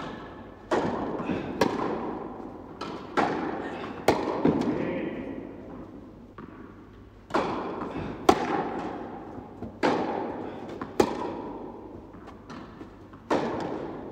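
Tennis balls struck by rackets and bouncing on an indoor hard court during a rally. There are about ten sharp pops, each followed by a long echo through the hall.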